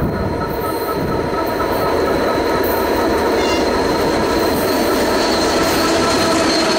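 Twin-section 2TE116 diesel locomotive hauling a freight train, approaching and passing close by. Its diesel engines run with a steady drone that grows louder as it nears, and a thin high whine strengthens toward the end.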